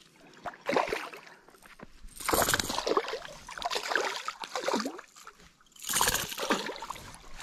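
A hooked smallmouth bass splashing and thrashing at the water's surface as it is brought in to be netted. There are two big splashes, about two seconds in and about six seconds in, with smaller sloshing between them.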